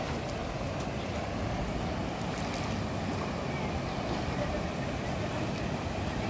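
Steady rushing roar of a fast-flowing river, an even noise with no breaks.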